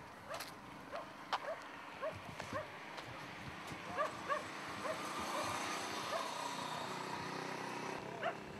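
A dog barking repeatedly in short, sharp yaps at irregular intervals, with a steady hum building up about halfway through.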